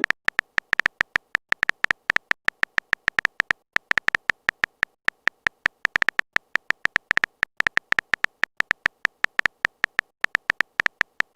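A rapid, uneven run of short electronic tapping clicks, each with a small beep in it, like a phone keyboard's typing sound effect.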